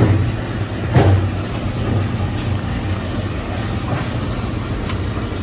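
A steady low machine hum, with two sharp knocks near the start about a second apart, as a knife slices beef liver on a plastic cutting board.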